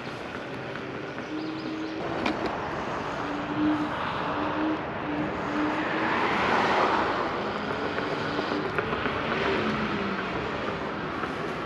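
Riding noise from an Ausom L2 Max dual-motor electric scooter on paved trail: a steady rushing noise that swells midway, with a short broken hum from the motors coming and going.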